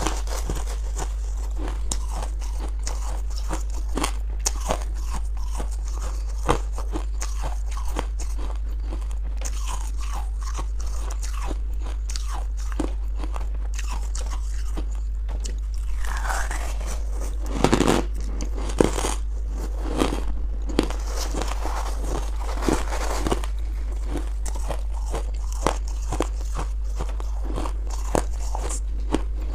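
Close-miked chewing of crunchy buckwheat chunks: a dense, irregular run of small crisp crunches, with a louder cluster a little past halfway. A steady low hum runs underneath.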